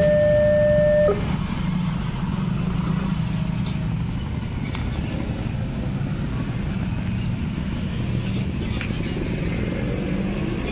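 Railway level-crossing warning alarm sounding a steady electronic tone that cuts off about a second in, then motorcycles running across the crossing with a steady low engine hum.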